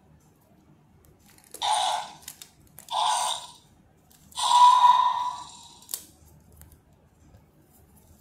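Three short raspy roars, the last one the longest and loudest, made as the Scorpios Rex toy dinosaur is played with.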